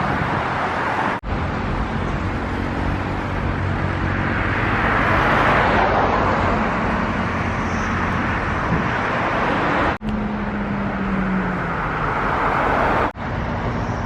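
Steady road traffic noise, with a vehicle passing and swelling loudest about five or six seconds in. The sound breaks off for an instant three times.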